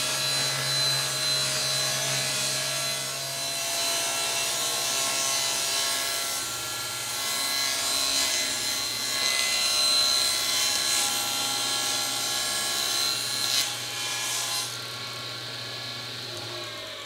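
Table saw running with its blade ripping a long sheet of plywood along its length: a steady motor hum under a continuous cutting noise. About three-quarters of the way through the cutting noise stops and the saw runs on more quietly, fading as it winds down.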